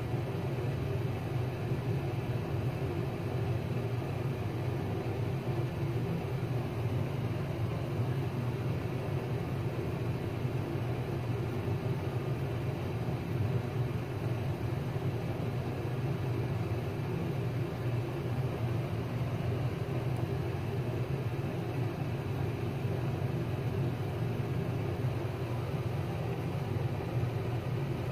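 Steady low background hum, unchanging throughout, with no other distinct sounds.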